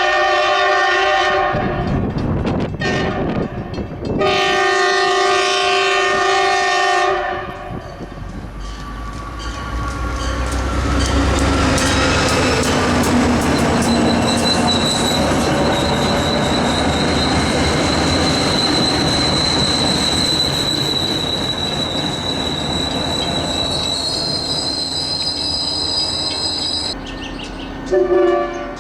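Train horn blown twice, a chord of several tones cut off about a second and a half in, then sounded again from about four to seven seconds in. The train then passes with a loud rumble of wheels on rail and a high steady squeal, which drops away near the end.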